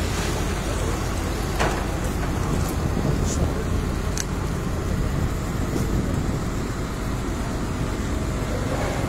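Steady low rumble of vehicle engines running, with a few faint clicks scattered through the first half.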